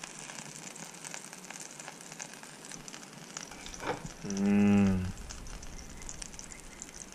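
Flathead fillet frying in oil in a pan, a steady faint sizzle with fine crackles. About halfway through, a short low hum lasting under a second rises above it as the loudest sound.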